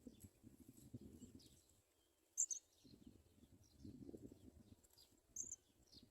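House sparrows chirping faintly: scattered thin high chirps, with two short, sharper chirps about two and a half seconds in and again near the end. A low rumble runs underneath.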